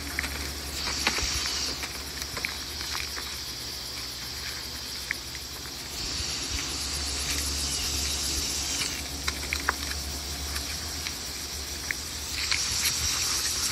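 Insects calling in a high, hissing chorus that swells three times, over a low steady hum and a few faint clicks.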